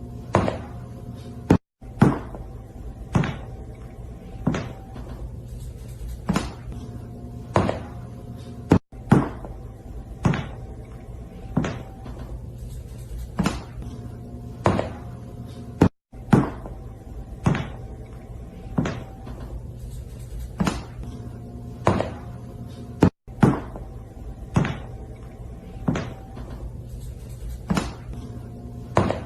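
A series of sharp knocks or bangs, several every few seconds, over a steady low hum. The same short stretch of knocking repeats about every seven seconds, with a brief cutout between repeats.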